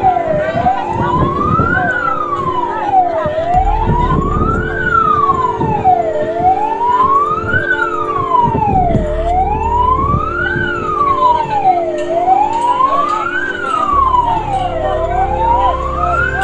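Emergency siren wailing, its pitch sweeping slowly up and down about every three seconds, over a steady low rumble and hum.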